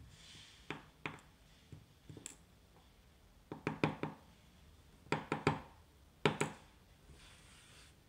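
Small metallic clicks and taps from a brass Assa Twin V-10 lock cylinder being handled and taken apart: a few single clicks, then three quick clusters of clicks in the second half, with a soft rustle at the start and near the end.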